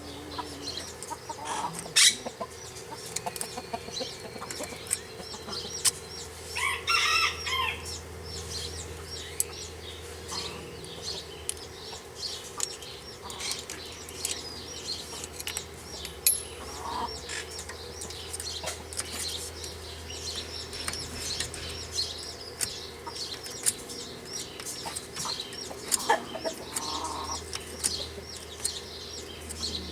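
Chickens clucking, with a louder call about seven seconds in and another near the end, while small birds chirp and sharp metal clinks come now and then.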